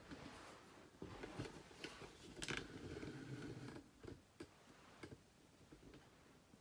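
Faint scattered clicks and light rustling, busiest from about a second in to about four seconds in.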